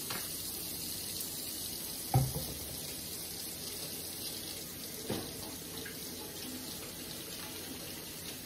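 Kitchen tap running steadily into the sink as hands are washed under it, with a sharp knock about two seconds in and a lighter one about five seconds in.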